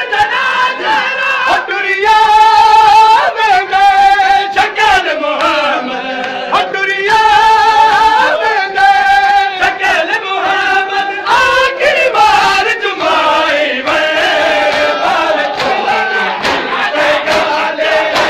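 A group of men reciting a noha (Shia lament) in unison: loud chanted singing with long held, wavering notes, with sharp slaps of chest-beating (matam) throughout.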